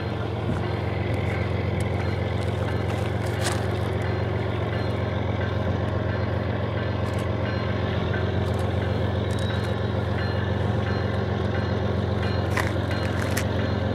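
GE ES44AC diesel-electric locomotive's V12 engine working steadily under load as the freight train pulls away from a stop, a deep even hum.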